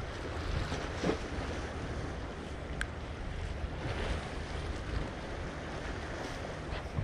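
Wind buffeting the microphone, a steady low rumble, over the wash of small sea waves against the concrete tetrapods of a breakwater.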